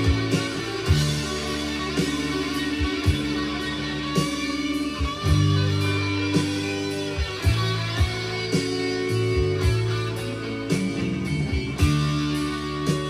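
Rock music played back from cassette on a Tandberg TCD 440A deck: electric guitar over a steady bass line, with regular drum hits.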